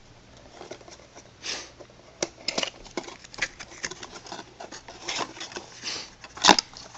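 Packaging of a small collectible figure being opened by hand: irregular crinkling, rustling and tearing with scattered clicks, and one sharper, louder snap near the end.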